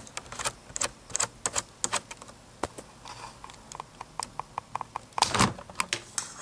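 Camera being handled and taken off its tripod: a string of sharp, irregular clicks and knocks, with a quick run of evenly spaced ticks, about five a second, a little past halfway and a heavier knock about five seconds in.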